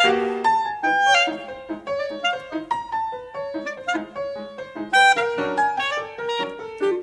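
Free-jazz improvisation for piano and clarinet, both playing busy, quickly changing notes together, with strong accents near the start and about five seconds in.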